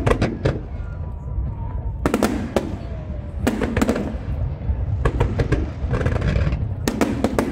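Aerial fireworks bursting in quick clusters of sharp bangs and crackles, a new cluster about every one and a half seconds, over a constant low rumble.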